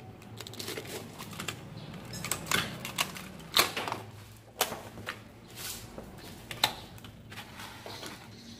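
Clear plastic blister-pack packaging being pried open and handled, crackling and snapping in a string of sharp clicks, the loudest a little past three and a half seconds and again at about six and a half seconds.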